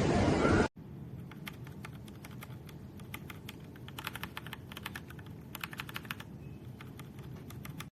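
Typing on a mechanical keyboard: runs of quick key clicks with short pauses between them. Under a second in, a loud rush of noise cuts off abruptly.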